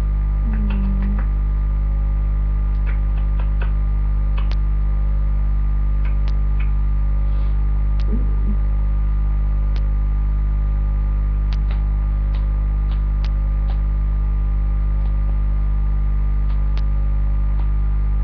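Loud, steady electrical mains hum on the recording, with scattered small clicks and ticks throughout.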